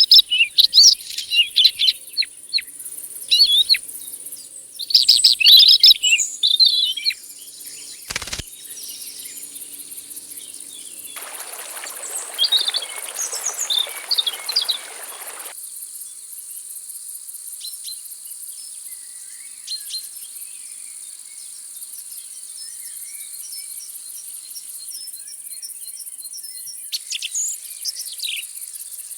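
Birds calling and chirping in quick, loud phrases during the first seven seconds, then sparser chirps, with more calls near the end. Under them runs a steady high-pitched insect trill. A sharp click about eight seconds in and a few seconds of rushing noise in the middle break in.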